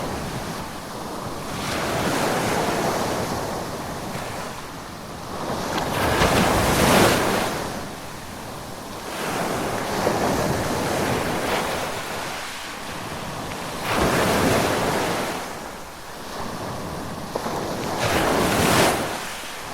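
Ocean surf: waves breaking and washing in, a swell of rushing water about every four seconds, each rising and falling away.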